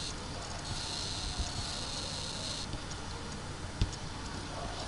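Steady microphone hiss with a few faint clicks, typical of a computer mouse being clicked. The sharpest click comes nearly four seconds in.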